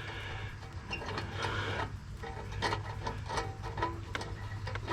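Light metallic scraping and small clicks of a heat-shield bolt being worked by hand into its thread, over a low steady hum.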